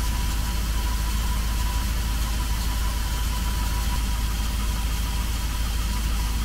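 Van engine idling steadily under an open hood while its cooling system is being topped up and burped of an air bubble, with a faint steady high whine over the low running.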